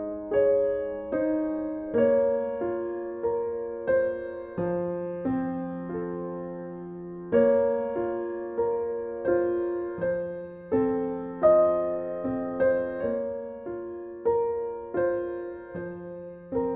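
Background music: soft piano notes played at a gentle, even pace, each note struck and fading away.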